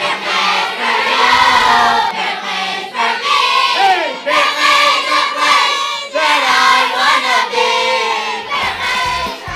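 Boys' choir singing a section of a song with the drum beat dropped out over a held low note; the beat comes back in near the end.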